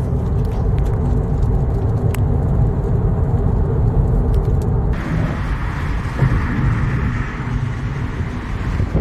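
Car's low road and engine rumble heard from inside the cabin. About five seconds in it cuts abruptly to a steady, brighter hiss.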